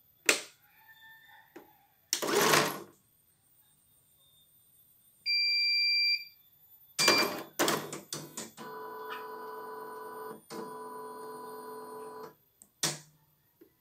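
CNY portable computerised embroidery machine powering up with one long electronic beep as its start-up logo comes on. This is followed by a few clattering strokes and then its motor running steadily for about four seconds before stopping. There is a click at the start, a short rattle a couple of seconds in, and another click near the end.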